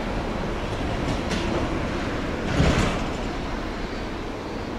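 Twin-engine Boeing 767 freighter at takeoff thrust, its jet engines giving a steady rushing noise as it rolls and rotates for lift-off. A brief louder rush of noise comes about two and a half seconds in.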